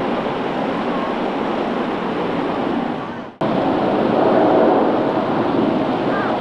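Jet airliner engines making a steady rushing noise. The noise dips and breaks off suddenly about three and a half seconds in, then comes straight back just as loud with a faint steady whine on top.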